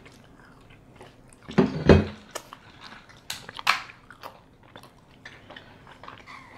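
Close-miked chewing and mouth sounds of someone eating soft donuts, with wet smacks and clicks scattered through and a louder burst about two seconds in.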